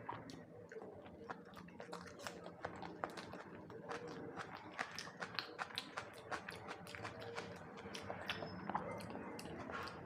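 Close-up chewing and biting of food, wet smacking and crunching with many small sharp clicks.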